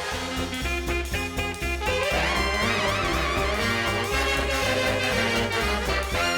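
Swing-style outro music with trumpet and trombone over a steady beat.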